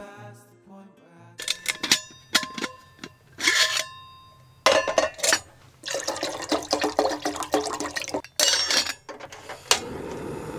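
A stainless-steel pot clinks and clatters as it is handled and water is poured into it, in several pours. Near the end a cassette gas stove clicks alight and its burner starts a steady hiss under the pot.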